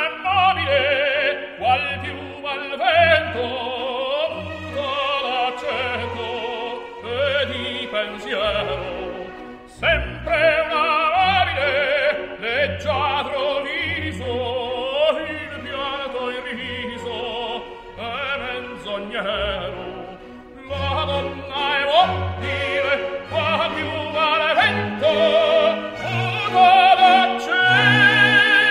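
Operatic singing with a wide vibrato over an orchestral accompaniment, the bass marking a steady repeating beat under the voice.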